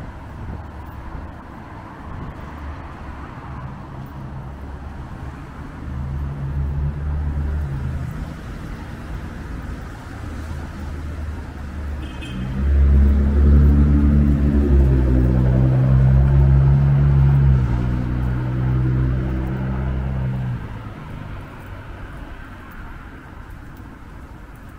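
City road traffic: steady tyre and engine noise from passing cars on a wet road. From about halfway through, a large vehicle's engine drones loudly close by for several seconds, its low pitch shifting in steps, then fades.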